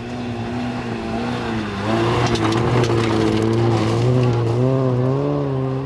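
Rally car engine revving hard on a loose dirt stage. It gets louder about two seconds in, its pitch dipping and then climbing and wavering as the throttle is worked. Dirt and gravel spatter under the tyres as it slides through the bend.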